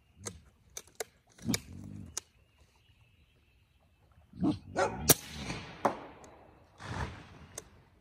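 A dog barking and yelping in several short bouts, among a few sharp clicks.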